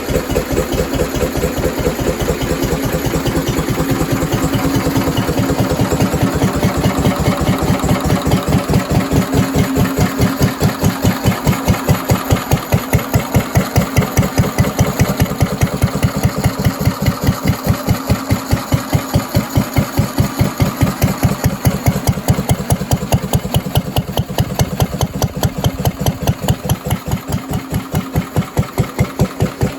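Vintage Lister D single-cylinder stationary engine running unloaded at a slow idle, thumping away in an even rhythm of about four to five firing strokes a second.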